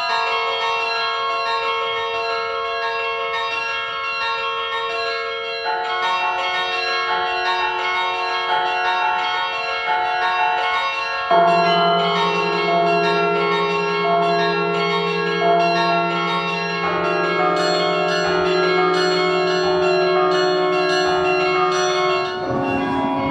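Carillon of large bronze bells playing a melody, many struck bells ringing on over one another. A deep bass bell comes in about eleven seconds in and rings under the tune.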